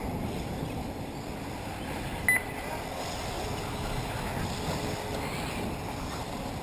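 Steady wind rumble on the microphone, with a short, sharp, high-pitched beep about two seconds in.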